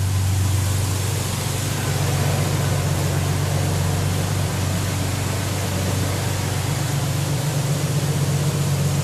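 Ford Ranger pickup's engine idling steadily, its throttle plate freshly cleaned, with an even hiss over the engine note.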